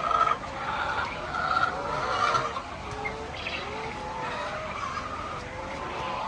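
Many chickens calling at once, a crowded chorus of overlapping squawks and cackles from a flock of hens.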